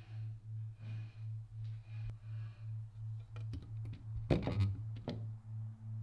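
A low electronic tone pulsing about three times a second, with faint hissy swells above it. A short clatter of clicks and knocks from metal parts being handled comes about four seconds in, and a second, higher steady tone joins just after.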